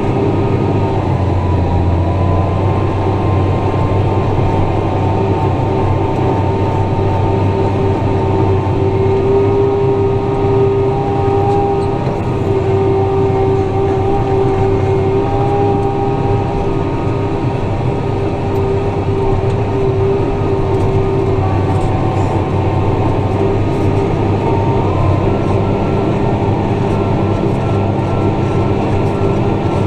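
Tractor engine running steadily under load while pulling a ripper through the soil, a constant drone with a few steady humming tones.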